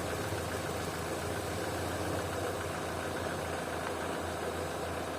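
Opel/Vauxhall car engine idling steadily, with an even low hum and no change in speed.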